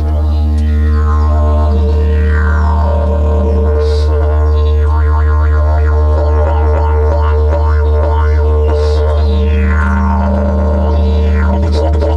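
Didgeridoo drone played with circular breathing, the low fundamental held without a break. Overtones sweep up and down as the mouth shapes the sound, with a fast rhythmic pattern in the middle, and a higher note comes in twice over the drone.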